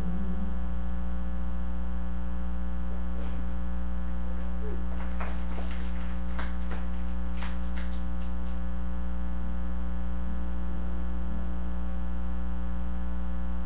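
Steady electrical mains hum in a live sound feed: a low buzz with a long stack of overtones that does not change. A few faint scratchy clicks come through in the middle.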